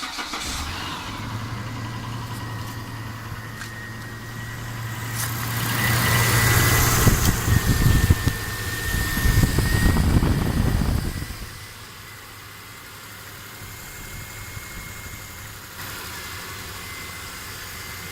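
Car engine running just after starting. Its sound swells from about four seconds in and stays louder for several seconds, then drops to a quieter steady idle about eleven seconds in. The valve tapping being checked for is hardly audible.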